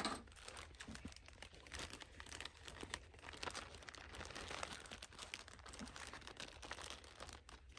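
Clear plastic zipper bag crinkling faintly as it is handled and pulled open, with scattered small crackles.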